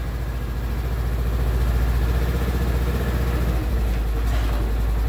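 Polaris Ranger XP 1000 UTV's twin-cylinder engine running at low speed as the machine creeps forward into its wheel chocks, with a steady low hum.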